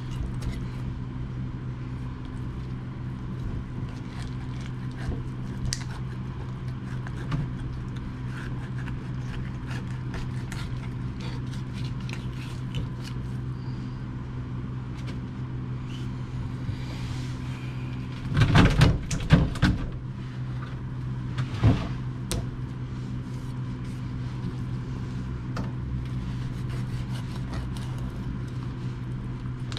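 Knife cutting and scraping through a rockfish on a plastic cutting board, heard as faint scattered ticks over a steady low hum. A louder clatter comes about two-thirds of the way through, followed shortly by a single knock.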